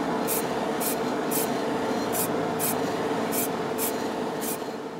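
Aerosol spray paint can hissing in short pulses about twice a second, with a steady extractor fan whirring under it in a hobby spray booth.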